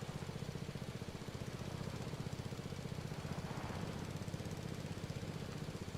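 Husqvarna riding lawn mower's engine running steadily with an even, rapid putter.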